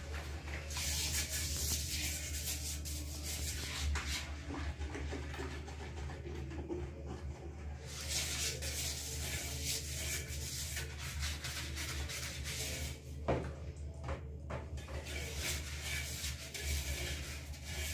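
Hand scrubbing inside a porcelain toilet bowl: rubbing strokes in stretches of a few seconds with short pauses, and a couple of knocks about three quarters of the way through. A steady low hum runs underneath.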